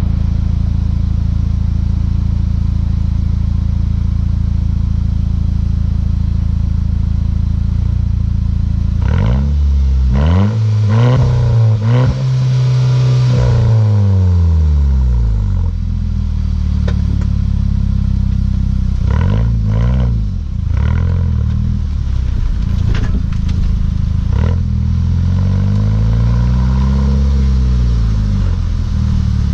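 Volkswagen Mk6 GTI's turbocharged 2.0-litre four-cylinder engine sounding through a Beluga aftermarket exhaust. It drones steadily for the first several seconds, then climbs and falls in pitch in a run of quick pulls and one longer rise. A few more revs come about two-thirds of the way in, and a slow rise and fall near the end.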